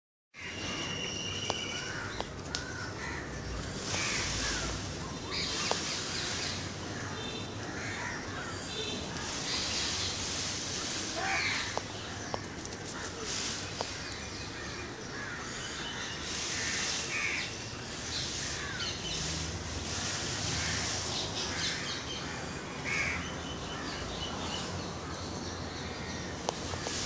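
Scattered bird calls, some of them harsh and caw-like, over a steady outdoor hiss, with several short rushing bursts of noise about a second long.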